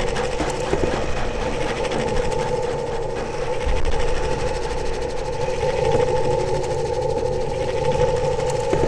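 Noisy electronic drone from a Eurorack modular synthesizer and iPad found-sound playback: two steady held tones over a dense, engine-like low rumble and hiss.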